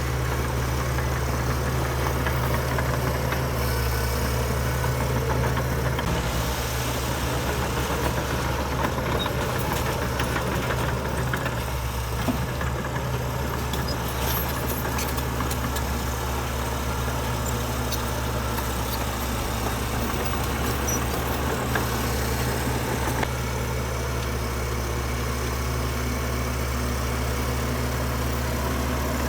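Heavy diesel engine of earthmoving machinery running steadily, a low, even hum that barely changes.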